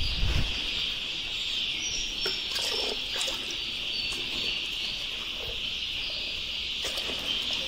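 A steady, high-pitched chirring din, with a few light knocks of plastic poultry drinkers being handled.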